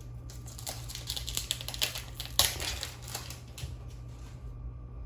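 Foil trading-card booster pack and its cards being handled: a quick run of crinkles and clicks, with a sharper snap about two and a half seconds in, dying away near the end.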